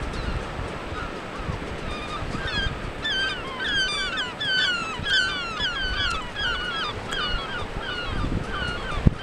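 A flock of birds calling, with many short, overlapping calls that bend up and down in pitch, several a second, growing thicker about three seconds in, over a steady rush of wind and surf. A single sharp thump comes just before the end.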